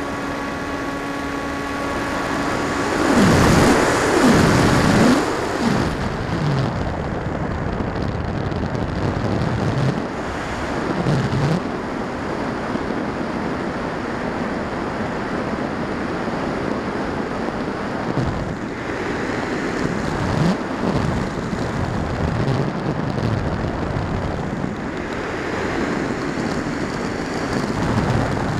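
Rushing airflow over the onboard camera's microphone on a Firstar 2000 V2 FPV glider in flight, a steady loud noise. For the first three seconds a steady electric-motor tone with several overtones sits on top of it, then the pitch sweeps up and down a few times before the rushing noise carries on alone.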